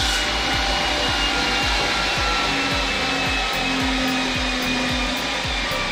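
Workshop belt grinder running steadily, grinding steel at first, with a hiss, a few held whining tones and a low pulse about three times a second.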